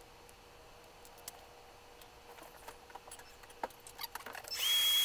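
A craft knife tip scraping and ticking faintly on an LED bulb's circuit board as leftover solder-pad fragments are picked off. About four and a half seconds in, a loud steady high whine with a hiss starts suddenly.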